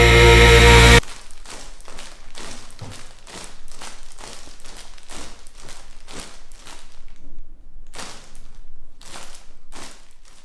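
Rock music cuts off about a second in. Then come irregular soft taps and rustles, a few a second, as kittens play with a feather toy on a wooden tabletop, with a short lull near the end.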